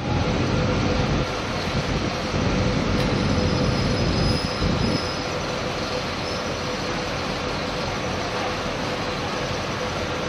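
A 4.8 m core veneer drying machine running: a steady mechanical din with a constant hum through it, slightly louder and heavier in the low end for the first five seconds.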